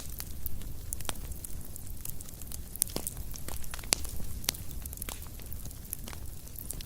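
Fire crackling: irregular sharp pops and snaps over a low steady rumble, with a couple of louder pops around the middle.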